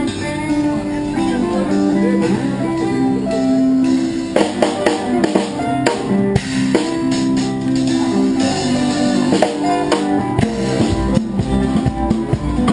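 Street band playing an Angolan rhythm: guitar with drums and percussion joining about four seconds in.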